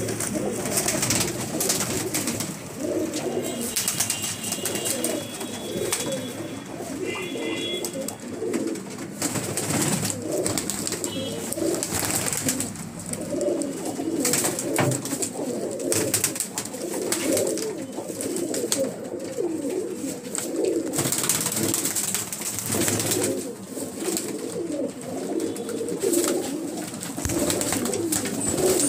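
A flock of Deobandi pigeons cooing continuously over one another, with frequent wing flaps as birds flutter about.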